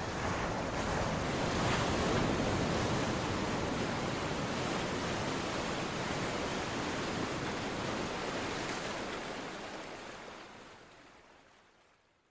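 Ocean surf washing onto a beach, a steady rush of breaking waves that swells about two seconds in and then fades out to silence near the end.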